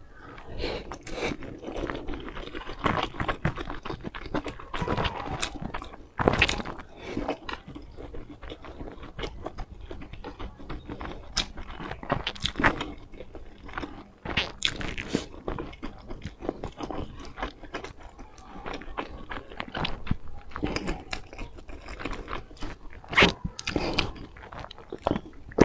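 Close-up mouth sounds of a person biting into and chewing soft steamed buns in chili oil: wet chewing with many short, sharp lip smacks and clicks.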